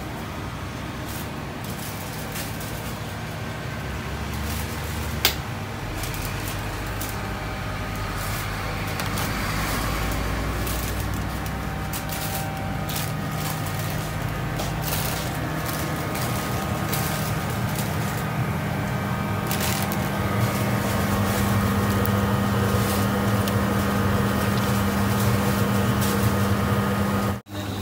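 Steady hum of commercial kitchen extraction and equipment, with scattered light clicks and one sharp click about five seconds in. The hum grows somewhat louder in the second half and cuts out briefly just before the end.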